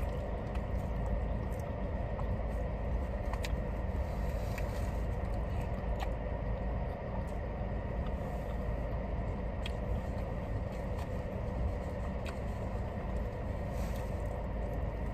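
Steady low rumble of a car's idling engine heard inside the cabin, with a faint steady whine. Light clicks and taps every few seconds from a plastic fork in a foam takeout box and from chewing.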